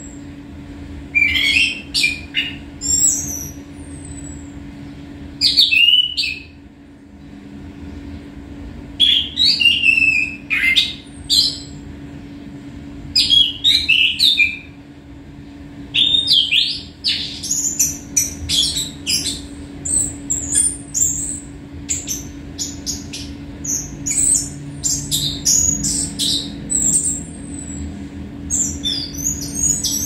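Caged songbird singing in bursts of short, varied whistles and chatter, every couple of seconds at first and almost continuously in the second half. A steady low hum runs underneath.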